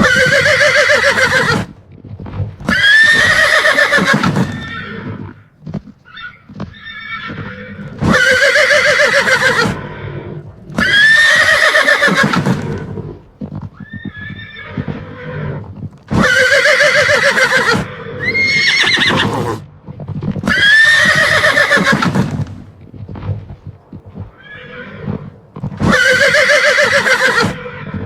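A horse whinnying again and again: loud neighs of a second or two, often two close together, coming back about every eight seconds, with quieter, lower sounds between them.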